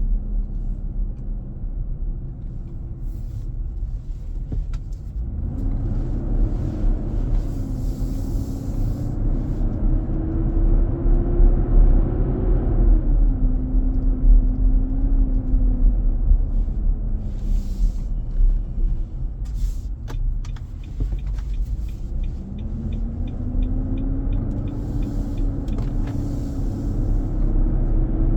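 Inside the cabin of a 2023 Nissan Armada on the move: a loud, steady rumble with a drone that rises in pitch twice as the vehicle speeds up, dropping in between. This is the unexpected noise the dealer traced to the engaged engine fan clutch.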